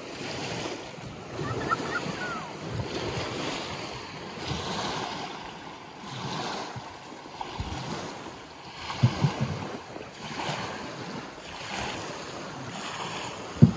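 Small waves lapping and washing onto a sandy lakeshore, swelling every second or two, with wind buffeting the microphone.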